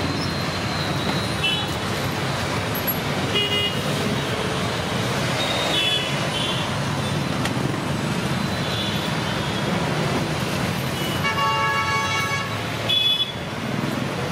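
Steady road traffic with several short vehicle horn toots. About eleven seconds in comes one longer horn blast lasting nearly two seconds.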